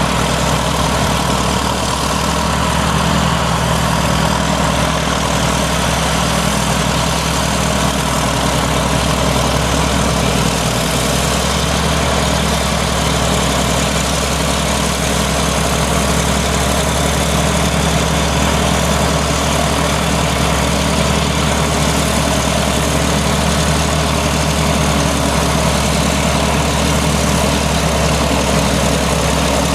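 Heavy Caterpillar earthmoving diesel engine running steadily with a deep drone and slow, slight rises and falls in pitch.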